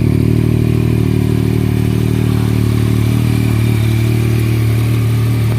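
Yamaha MT-09's three-cylinder engine idling steadily through an Akrapovic carbon full-system exhaust with its dB killer fitted, running loud while it warms up before being revved.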